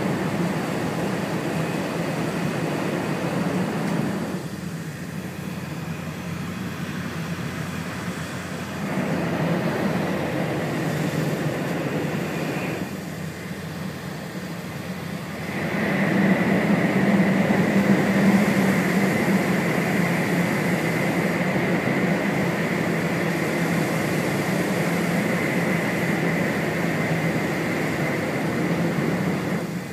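Cabin noise of an E4 series Max double-decker Shinkansen running at speed: a steady rumble and rush of wheels and air. It drops quieter twice, then from about halfway through turns louder with a steady high whine, running through a tunnel.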